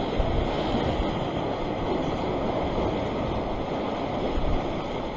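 Choppy sea surging and washing around a rocky shoreline ledge, a steady rush of surf with wind buffeting the microphone.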